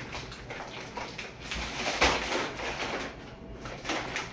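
Plastic rustling and crinkling as a large plastic sack is opened and a plastic-wrapped roll of fiberglass mesh is pulled out of it, loudest about two seconds in, with a shorter rustle near the end.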